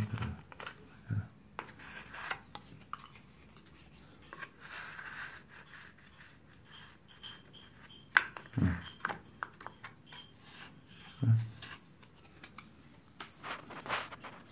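Steel putty knife scraping wet joint compound along the profile of a gypsum cornice corner joint, in short intermittent strokes that clean off the excess. A couple of sharper knocks come about 8 and 11 seconds in.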